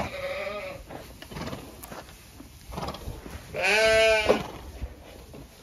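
Zwartbles sheep bleating in the shed: a short bleat at the start and a louder, longer, quavering bleat about three and a half seconds in.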